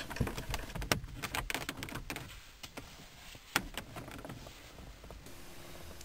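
A few sharp plastic clicks and light rattles, the loudest about three and a half seconds in, as the ignition lock's trim cover is pushed on and its two clips snap into place. A faint steady hum starts near the end.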